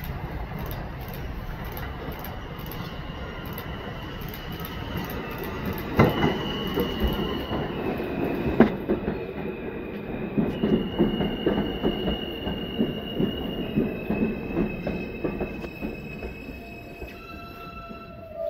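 R160 subway train pulling into the station and slowing: wheels rumbling and clacking over the rails, with a high whine that keeps jumping between two pitches as it comes in.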